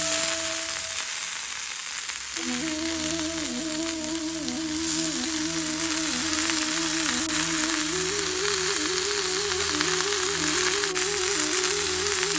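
Sliced onions sizzling as they fry in hot oil, along with curry leaves and chillies, a steady crackling hiss. Soft background music plays over it, dropping out briefly about a second in.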